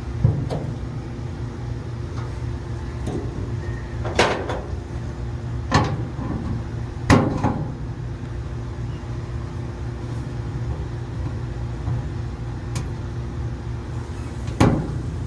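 A handful of sharp clicks and knocks from fitting new Samsung dryer drum support rollers onto their shafts and pressing on the retaining clips, the loudest about seven seconds in. A steady low hum runs underneath.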